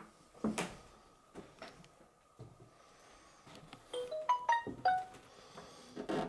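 Knocks and thumps from moving through a debris-strewn room, the biggest about half a second in. About four seconds in comes a quick run of short pitched notes that climb in steps and then drop, lasting about a second.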